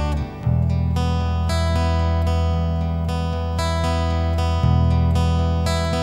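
Instrumental opening of a Polish scouting-song arrangement: acoustic guitar strumming over held low bass notes, with a brief drop in level just after the start.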